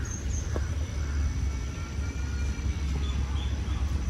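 Outdoor background noise: a steady low rumble with a faint, steady high whine over it, and one light click about half a second in.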